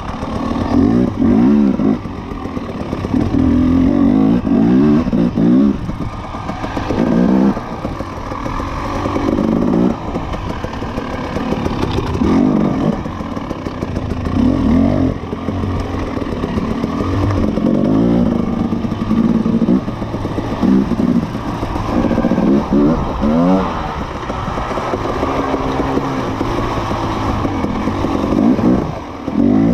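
Dirt bike engine revving up and dropping off again and again as the throttle is worked over rough trail, heard from on the bike.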